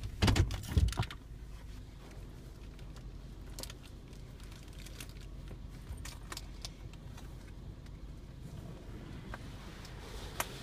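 Inside a car entering an automatic car wash: a short clatter of sharp clicks and rattles about a second in, then a faint low rumble with scattered light ticks and one more click near the end.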